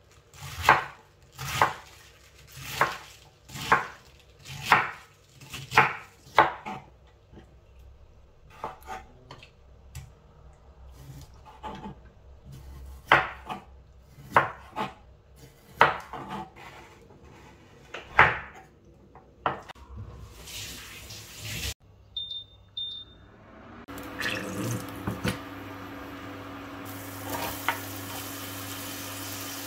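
Chef's knife chopping cabbage on a wooden cutting board with sharp strokes about once a second, then sparser knocks as it slices raw chicken. Two short beeps follow, then a steady hiss and hum as diced onion is tipped into a steel pot of oil, with a few clatters.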